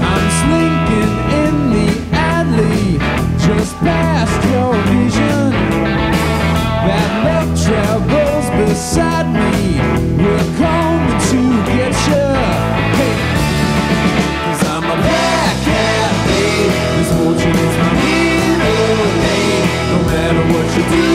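Rock band recording, a blues-rock song with electric guitars over bass and drums keeping a steady beat.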